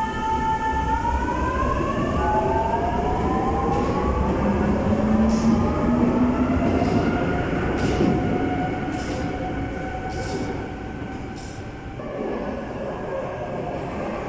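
MF88 Paris Métro train running with its traction motors whining, the whine rising in pitch as the train pulls away. Near the end another MF88 comes in, its whine falling in pitch as it brakes.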